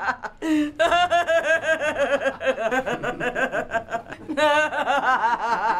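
Several people laughing together, a quick run of ha-ha-ha pulses with voices overlapping.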